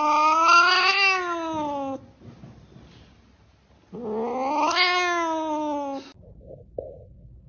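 A cat yowling twice while its claws are being clipped, each call about two seconds long, rising in pitch and then falling.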